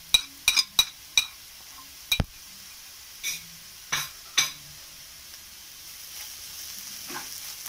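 A spoon tapping on a plate in a quick run of sharp, ringing clicks, then a few single knocks, as garam masala is knocked off into the pan. Toward the end, onions frying in oil sizzle as they are stirred with a wooden spatula.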